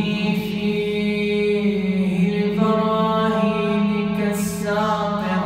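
A man's solo voice chanting an Arabic du'a (supplication) in melodic recitation, drawing out long held notes that step up in pitch about halfway through.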